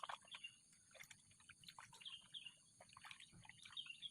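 Quiet outdoor ambience: faint bird chirps scattered throughout, over a steady high-pitched hiss.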